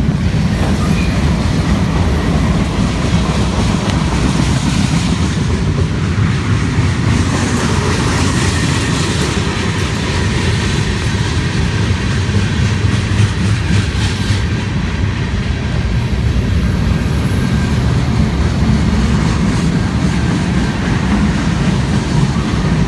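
BNSF freight train rolling past close by: a steady, loud rumble of wheels on rail with faint clicking over the rail joints.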